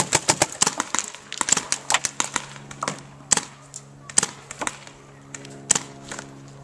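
Paintball markers firing: rapid volleys of sharp pops for about the first two and a half seconds, then single shots every half second or so, over a faint steady hum.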